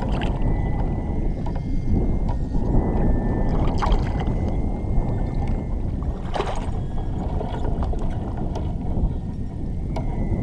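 Water lapping and sloshing against a kayak hull under a steady low rumble. Three short splashes come at the side of the kayak, about half a second in, about four seconds in and about six and a half seconds in, as a hand works in the water by the hull.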